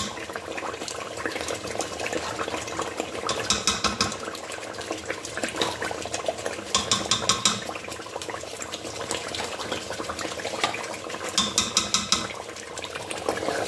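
Metal spoon scraping and stirring in a pot of frying tomato sauce, in three short bursts of quick strokes, over a steady bubbling and sizzling.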